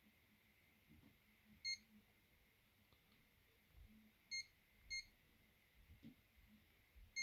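Alcatel BC2 mobile phone keypad beeping: four short, high beeps spaced irregularly over several seconds as keys are pressed to step through its menus.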